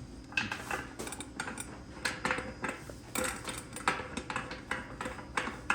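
Metal pipe fittings clinking and tapping together as a 1-inch union is fitted onto a still's 1-inch line arm: irregular light clinks and knocks, some with a short ring.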